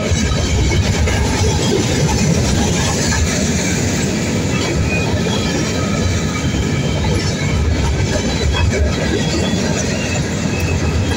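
Freight train of covered hopper cars and boxcars rolling past at close range: a loud, steady rumble of steel wheels running on the rails.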